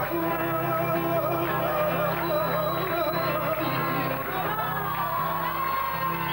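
Live music: voices singing over guitar accompaniment, with wavering sung lines over a steady chordal backing.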